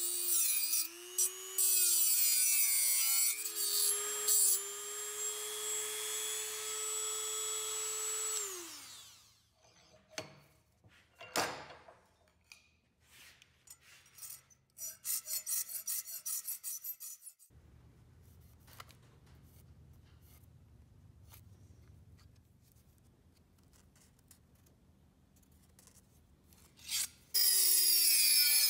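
Handheld rotary tool cutting a slot in a stainless steel ruler: a high whine that dips in pitch as the tool bites into the metal, for about nine seconds, then stops. Taps follow, then a quick run of file strokes in the slot, and the rotary tool starts again near the end.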